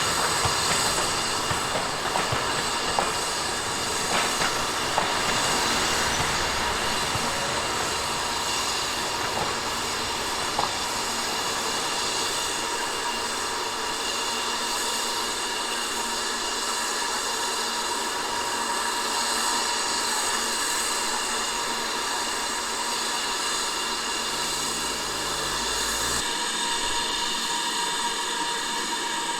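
Steam-hauled train running on the line: a steady rolling rush with high, ringing wheel-on-rail tones. Scattered sharp clicks in the first ten seconds or so, like wheels passing over rail joints.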